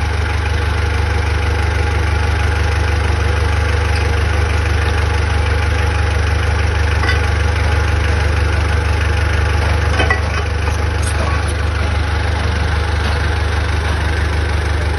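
An engine idling steadily with a deep, even hum, with a few faint ticks along the way.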